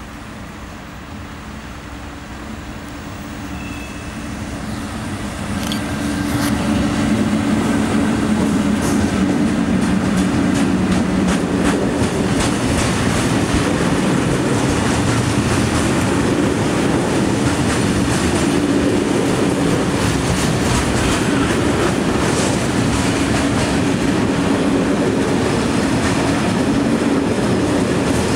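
Freight train passing close by: a diesel locomotive's engine note grows louder as it approaches. From about six seconds in, it gives way to the steady rumble and rapid clicking of the freight wagons' wheels over the rails.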